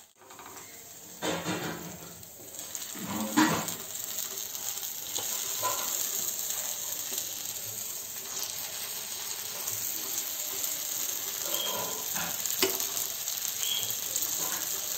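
Dosa sizzling on a hot griddle as tomato thokku is spooned onto it and spread with a steel spoon, with a few sharp clinks and scrapes of the spoon. The sizzle grows steadier after the first few seconds.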